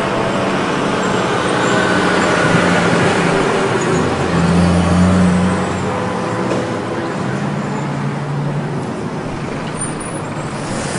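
City street traffic: a steady wash of vehicle engines and road noise, with one engine's low hum growing louder around the middle and then easing off.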